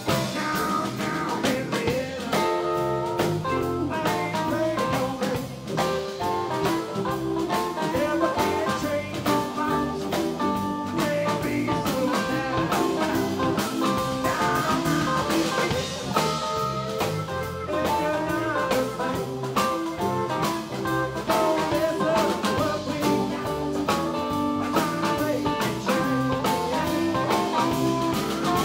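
Live blues band playing: electric guitar, electric bass, drum kit and keyboards together at a steady groove.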